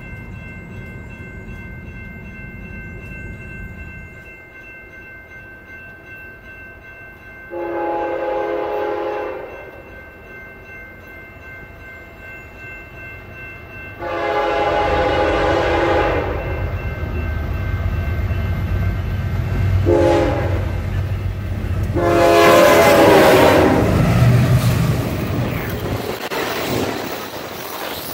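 Diesel freight locomotive's air horn sounding the grade-crossing signal as it approaches: two long blasts, a short one and a final long one, growing louder. Beneath it the rumble of the train builds, and near the end the passing intermodal cars rumble and clatter close by.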